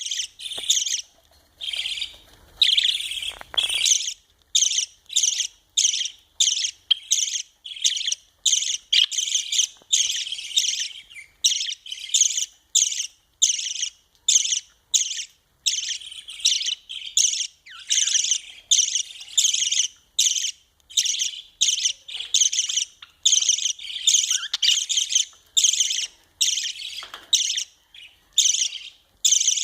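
Budgerigar chick begging while being fed: short raspy calls repeated in a steady rhythm, about two a second.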